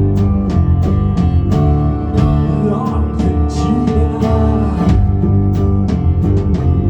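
A live band playing: sustained droning chords with sharp strikes recurring through it.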